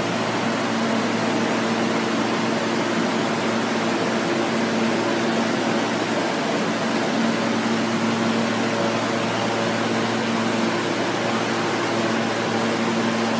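R160B subway car standing at the platform with its doors open, its roof air-conditioning and onboard equipment running with a steady whir and a low hum.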